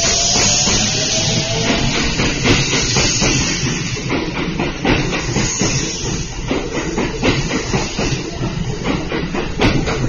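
Kintetsu electric train running past the platform: a steady rumble with many quick clacks of wheels over rail joints and points, and a faint rising motor whine in the first two seconds.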